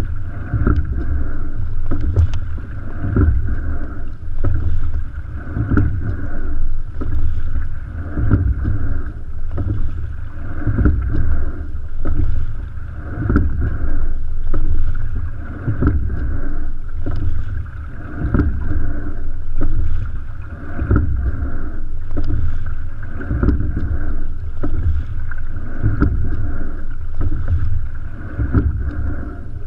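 Racing single scull under steady-state rowing: water rushing along the hull over a low rumble, with a thump at each stroke about every two and a half seconds.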